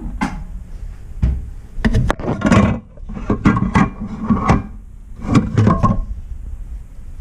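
Tools and parts being handled: a run of clicks, clunks and scrapes in three clusters, about two seconds in, around four seconds and near five and a half seconds.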